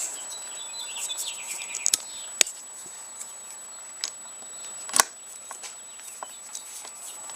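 A few sharp metallic clicks and knocks of a hand tool on a motorcycle handlebar clamp, two louder ones about two and a half and five seconds in.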